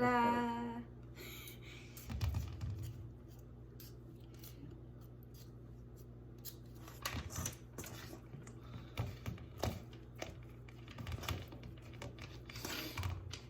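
Spoon scraping and knocking in a mixing bowl while cookie dough is stirred: scattered clicks and scrapes, coming more often in the second half, as the dry mix is worked into a dough.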